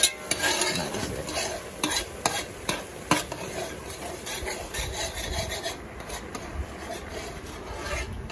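Metal spoon stirring fish curry in a large metal pot, with repeated sharp clinks and scrapes of the spoon against the pot's sides and bottom.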